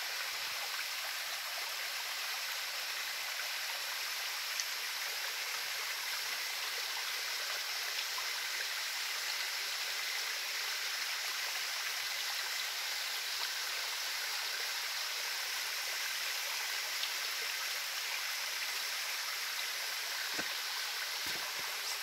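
Steady rush and splash of a small waterfall spilling down over rocks.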